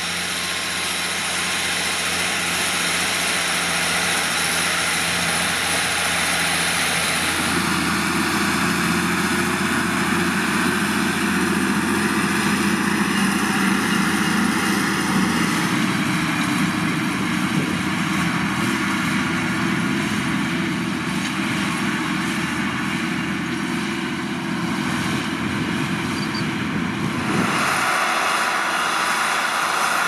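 Belarus MTZ-1221.2 tractor's six-cylinder turbo diesel running steadily under load while pulling a three-bottom reversible plough through the soil. The sound grows fuller about seven seconds in and thins again near the end.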